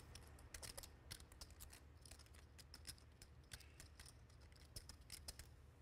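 Near silence with faint, irregular clicking of poker chips being handled at the table.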